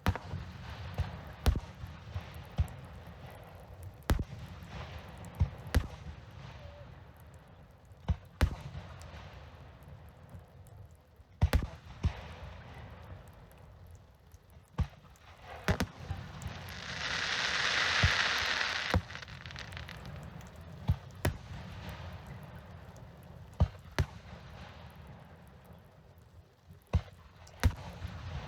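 Fireworks display: sharp bangs of shells bursting at irregular intervals, over a low rumble. About halfway through, a loud hissing crackle lasts a couple of seconds.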